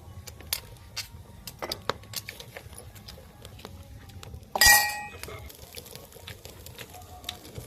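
Dishes and cutlery clinking in small scattered taps, with one loud clink of a dish about four and a half seconds in that rings briefly.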